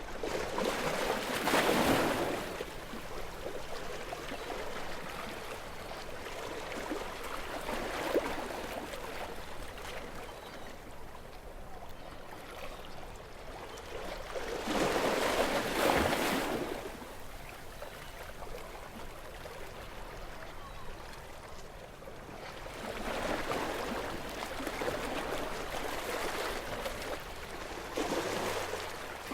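Gentle sea waves washing onto the shore, a steady rush of surf that swells three times: near the start, about halfway, and in a longer wash near the end.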